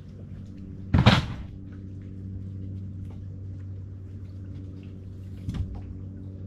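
A plastic storage tote's lid shutting with a loud thump about a second in, and a smaller knock on the boat's fibreglass deck near the end. A steady low hum runs underneath.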